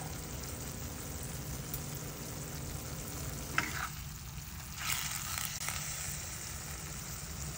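String beans and pork sizzling in a pan, with a sharp click about three and a half seconds in and a brief louder stir about five seconds in.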